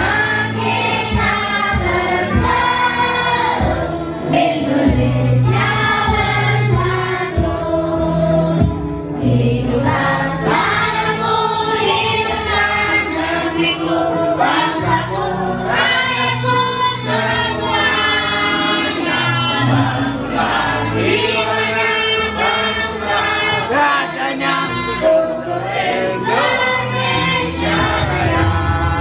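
A group of men and women singing a song together in chorus, over a musical accompaniment with sustained low notes.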